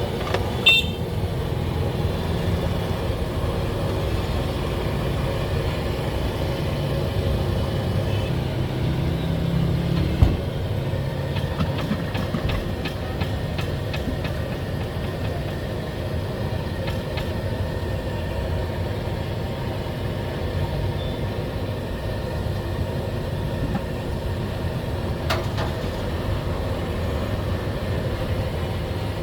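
A steady low engine rumble, like an idling motor, with a sharp knock about ten seconds in and a few fainter clicks.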